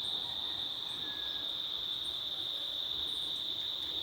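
Steady high-pitched insect chorus, one unbroken trill with no pauses or changes.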